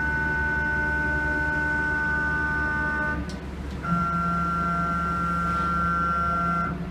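CNC machine axis drive motors whining steadily while an axis is jogged; the whine stops about three seconds in, then starts again half a second later with a different pitch and a low hum added, and cuts off near the end.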